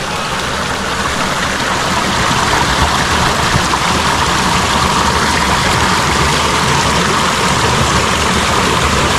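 Steady rushing noise of flowing water from a stream or waterfall, with a low rumble under it.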